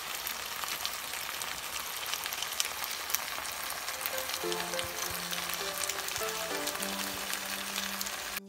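Creamy tuna spaghetti sauce sizzling in a frying pan, a steady crackling hiss with many small pops. Faint music notes come in about halfway.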